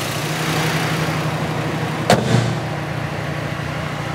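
Mazda MX-5's 2.0-litre four-cylinder engine idling steadily, with an airy hiss over it. A single sharp bang comes about two seconds in.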